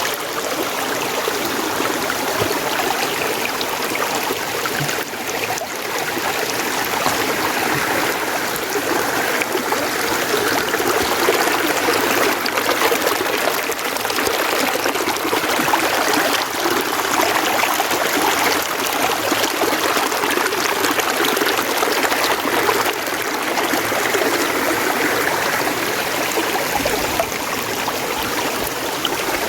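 Mountain stream flowing, a steady rush of running water.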